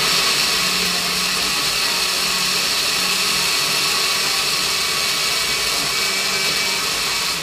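Countertop electric blender running steadily, its jar packed full with fruit, milk and oats being blended into a smoothie; the motor cuts off at the end.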